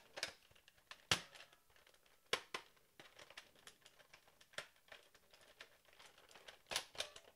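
Plastic parts of a toy foam dart blaster clicking and rattling as its bolt action is worked by hand, the blaster jammed on a dart. A few sharp clicks come irregularly, the loudest a little after one second in and near the end.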